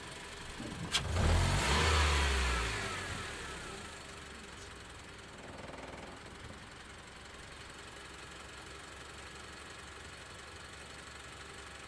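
Car engine: a sharp click about a second in, then a short loud flare of revs whose pitch falls away over a second or two, settling back to a steady idle.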